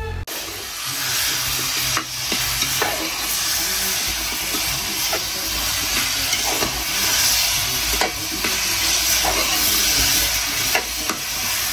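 Food sizzling in hot oil in a metal pot over a wood fire, a steady hiss, with a spoon now and then scraping and knocking against the pot as the potatoes are stirred.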